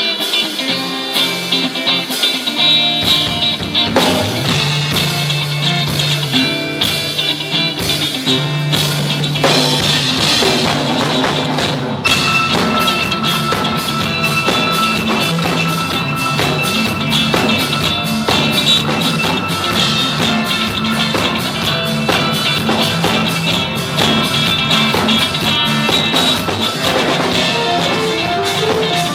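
Rock band playing live: electric guitar and drum kit, with the bass coming in about three seconds in and the drums getting busier on the cymbals about twelve seconds in.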